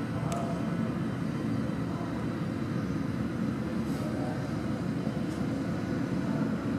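Steady low rumble of a running vehicle, with a couple of faint clicks.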